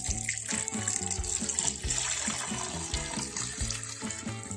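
Water poured from a glass jug into a pot over raw potatoes: a steady splashing pour that starts suddenly and fills the pot, over background music with a steady beat.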